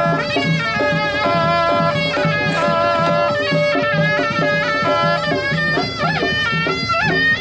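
Suona (Chinese shawm) band playing traditional temple ceremonial music: a nasal, wavering reed melody over a long held note, with a steady low beat of percussion beneath. The held note drops out about six seconds in.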